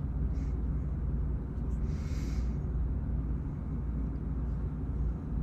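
Steady low rumble of room noise with no other activity, and a brief soft hiss about two seconds in.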